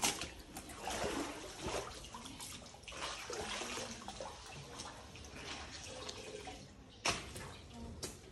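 Floodwater sloshing and splashing around a wooden boat as it is poled slowly through still water, with small drips and knocks throughout and one sharper knock or splash about seven seconds in.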